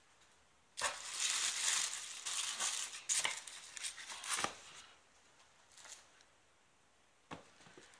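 Tissue paper rustling and crinkling in a cardboard shoe box as shoes are lifted out, from about a second in for roughly four seconds, then a light tap near the end.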